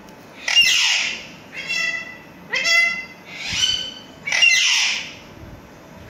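Alexandrine parakeets squawking: about five loud calls, roughly one a second, harsh screeches alternating with clearer, pitched shrieks.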